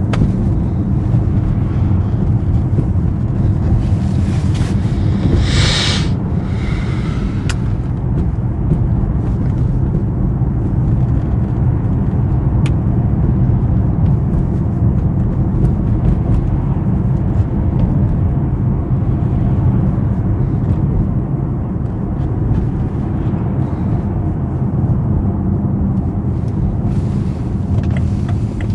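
BMW 750i's 4.4-litre twin-turbo V8 running steadily while driving, a low, even engine and road sound. There is a brief hiss about six seconds in.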